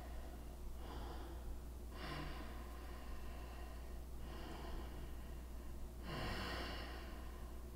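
A person breathing slowly and audibly in a yoga forward fold, about four long in-and-out breaths with the loudest a little after six seconds in, over a steady low electrical hum.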